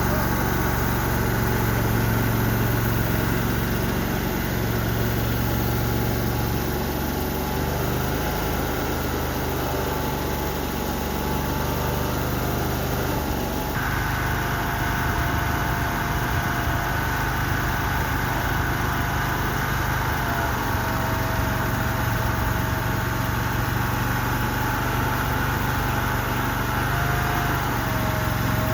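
Mini skid steer's small engine running steadily, with an abrupt shift in its sound about halfway through, after which a steady whine joins it.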